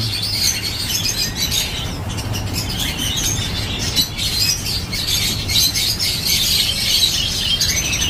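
Many caged songbirds chirping and twittering at once, a dense mix of overlapping high calls, over a steady low hum.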